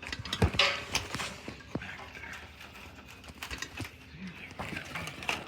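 Scattered clicks, knocks and light bumps, uneven in timing, from the camera being handled and set up against a window, with a brief rustle a little under a second in.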